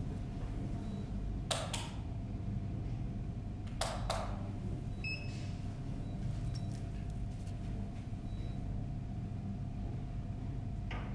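Steady low room hum with two sharp clicks, and a couple of faint brief beeps about five seconds in.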